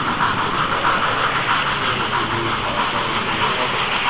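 OO gauge model train running along the track, heard close up from a camera riding on it: a steady whirring, rattling hiss from its motor and wheels on the rails.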